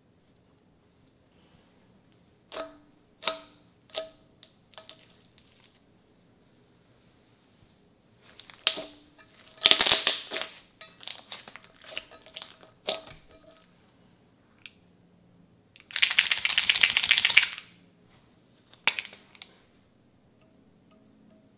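Pastel-blue slime being pressed and squeezed by hand, making sharp sticky pops and clicks. The pops come singly at first, then as a dense crackly squelching about ten seconds in. Later comes a longer crackling squish of about a second and a half, and one last pop.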